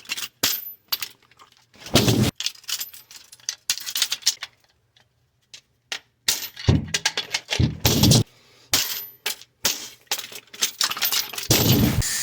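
Metal sockets of a Pittsburgh Pro socket set clinking and rattling on their plastic rails as the set is handled, with irregular plastic clicks and a few heavier bumps.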